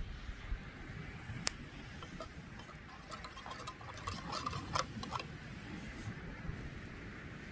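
Small clicks and crackles of a metal cezve being pushed and settled into hot ash and embers: one sharp click about a second and a half in, then a run of crackling ticks around the middle, over a low rumble of wind.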